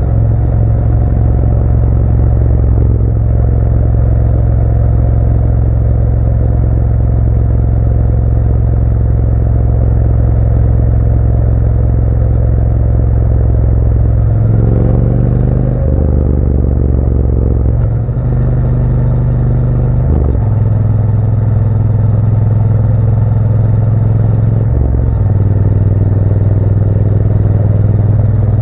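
Motorcycle engine running steadily under way, its pitch climbing about halfway through and then shifting up and down a few times as the speed changes.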